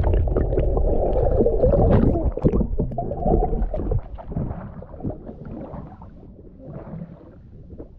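Muffled rumble and gurgle of water through the housing of a submerged action camera. It is loud for the first few seconds, then drops away about four seconds in to a quieter wash with small ticks of water as the camera sits at the surface.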